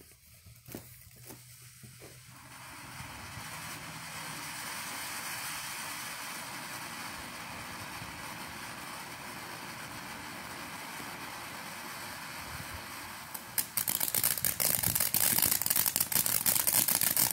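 TNT Fireworks 'Unglued' fountain firework: the fuse spits faintly, then about two seconds in the fountain catches and sprays sparks with a steady hiss. Near the end it breaks into loud, dense crackling.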